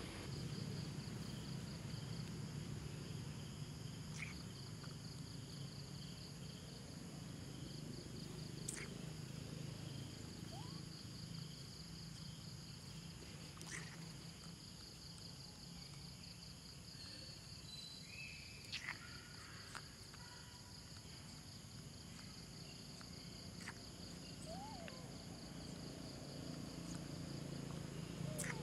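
Steady pulsing chirr of insects over a low background hum, with a few faint clicks and a couple of short chirps.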